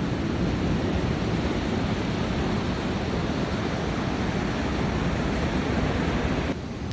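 Ocean surf rushing steadily, with wind buffeting the microphone; it turns a little quieter near the end.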